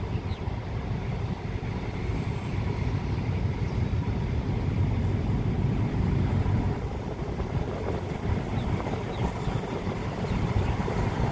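Alsthom diesel-electric locomotive's engine running as it slowly approaches hauling a passenger train: a steady low rumble that grows gradually louder.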